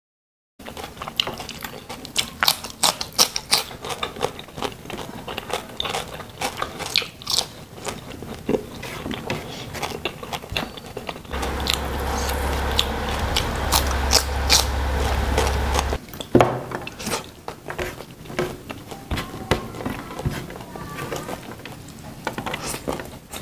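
Close-miked eating by hand: chewing and wet mouth sounds with many short sharp clicks as mouthfuls of rice with stir-fried green beans and corn are eaten. In the middle a steady low hum comes in for about five seconds and cuts off suddenly.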